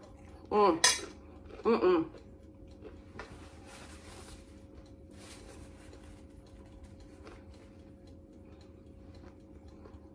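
A person eating with her mouth full: two short hummed 'mmm' sounds within the first two seconds, then soft chewing. Brief rustling comes about three and five seconds in, as a paper napkin is wiped across the mouth.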